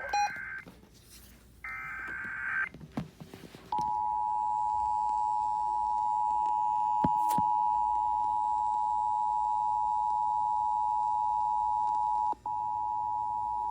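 Emergency Alert System test on the radio. There are two roughly one-second bursts of the digital SAME header data, then, from about four seconds in, the steady EAS two-tone attention signal (853 Hz and 960 Hz together), which holds and drops out for a moment near the end.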